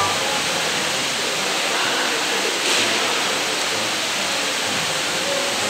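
Steady rush of running water in a fishing pond's pen, with a brief splash about two and a half seconds in as a hooked fish stirs at the surface.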